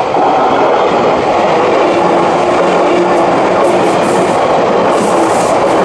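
Sotetsu Line electric commuter train passing close by over a level crossing: a loud, steady rush of wheels on rail, with hissing from the wheels and rails getting stronger from about three seconds in. The crossing's electronic warning bell rings faintly underneath.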